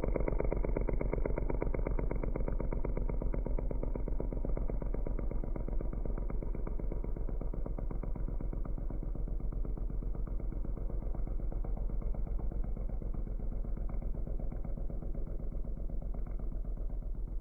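Kawasaki KFX840 quad's engine idling with a steady, even pulsing beat.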